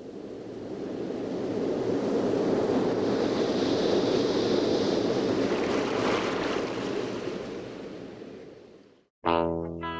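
A rushing noise with no clear pitch swells up over a couple of seconds, holds, then fades out about nine seconds in. Guitar music starts suddenly right after, near the end.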